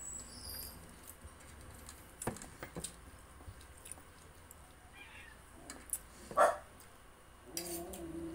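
A dog barks once, sharply, about six seconds in, over a quiet background with a few faint clicks.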